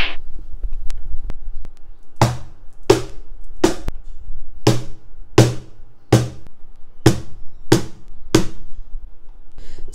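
Slap strokes on a CMC Rhythmbox wooden cajon, struck with an open hand on the front plate: three sharp strikes, a short pause, then six more, about one every 0.7 seconds.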